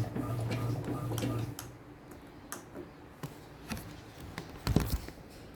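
Electrolux Essential Care washing machine running with a steady low hum and regular ticking, which stops about a second and a half in. Then it is quieter, with a few light clicks and a thump near the end.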